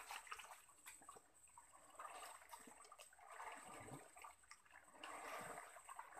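Shallow stream trickling and gurgling over rocks, faint, swelling and fading a few times.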